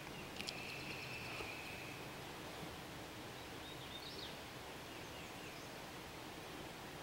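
Faint steady outdoor background noise with a bird calling: two sharp clicks about half a second in, then a long even high whistle lasting over a second, and a short rising chirp about four seconds in.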